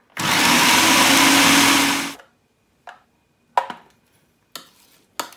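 Electric food processor running for about two seconds as it chops onion, green chillies and coriander, then cutting off suddenly. A few separate clicks and knocks follow as the lid is taken off.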